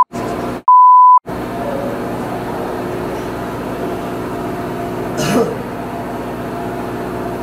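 A censor bleep: a steady 1 kHz tone lasting about half a second, about a second in, with the sound cut out around it, blanking out spoken words. After it comes a steady background hum, with a brief rising sound about five seconds in.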